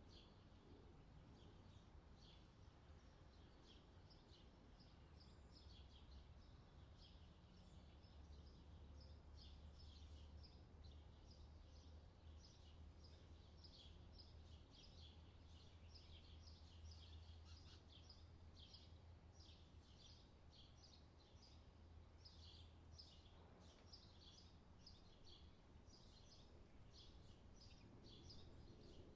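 Faint outdoor summer ambience: small birds chirping over and over in quick, short high notes, over a steady low rumble.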